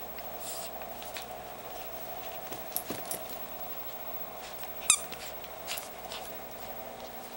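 Schipperke puppy chewing a squeaky plush toy, setting off several short, high squeaks at uneven intervals, the loudest about five seconds in.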